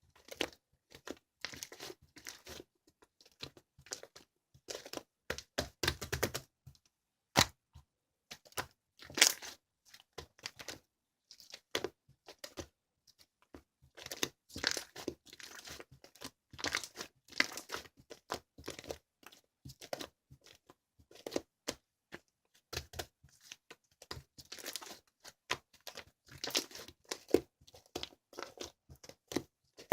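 Irregular close-up handling noises: short clicks and rustles in quick succession, broken by brief pauses.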